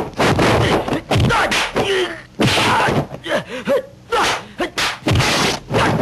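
Kung fu film fight sound effects: a rapid run of dubbed punch and kick impacts, with the fighters' gasps and cries between them.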